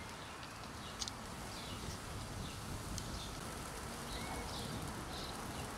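Faint outdoor background: a steady low rumble with a few faint bird chirps and a couple of light clicks.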